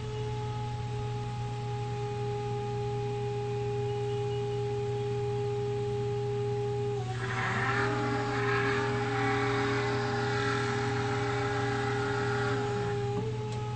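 Terex HyPower plug-in hybrid utility truck running quietly on its electric drive: a steady high whine over a low hum. About seven seconds in, a louder, rattly machinery sound with several tones joins for about six seconds, and the whine dips slightly in pitch until it stops.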